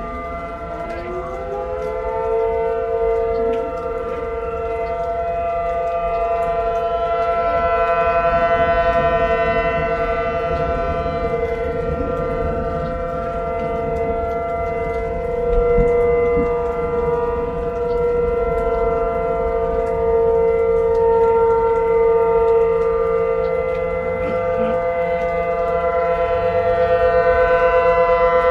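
Outdoor severe-weather warning sirens sounding a steady tone, several at once at different pitches. One winds up with a rising pitch in the first couple of seconds. The loudness swells and fades every six seconds or so.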